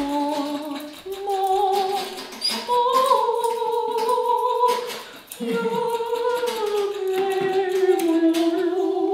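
Music: a woman's voice singing slow, long held notes, with little else under it.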